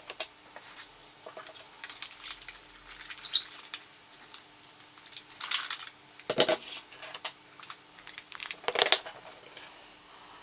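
Scattered clicks, taps and short rattles of small hard objects being handled, with the loudest knocks a little past the middle and near the end, over a faint steady hum.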